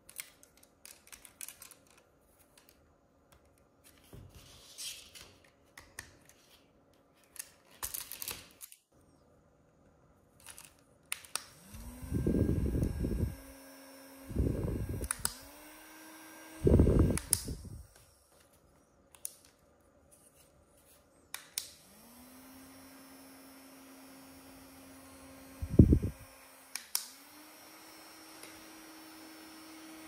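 Small rechargeable mini desktop fan: clicks and rustles of handling, then its motor is switched on and off several times, whirring up to pitch each time, with loud gusts of its air hitting the microphone. In the last third it runs on with a steady whir that dips briefly once.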